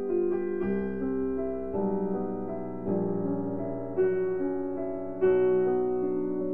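Background piano music at a slow pace, with a new chord struck about once a second.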